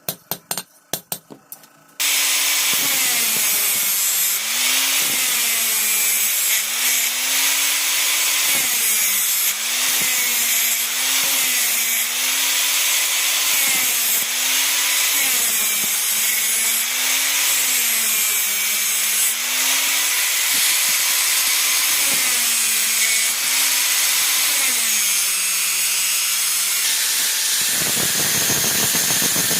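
A few light metal taps, then an angle grinder grinding steel. Its motor note sags each time it is pressed into the work and recovers between passes, dropping away near the end.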